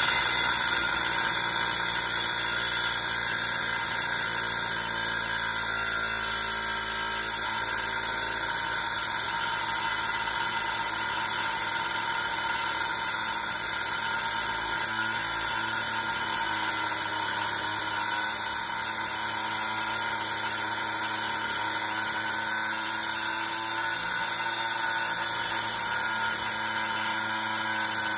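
Handheld angle grinder grinding into the metal shell of a small compressor: a steady, high-pitched whine with grinding noise, a little louder in the first couple of seconds.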